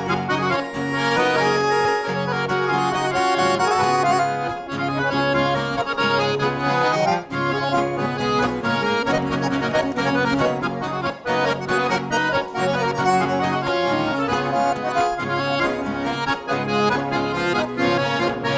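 Accordion playing the instrumental interlude of a gaúcho-style song between sung verses, over a steady bass and rhythm accompaniment.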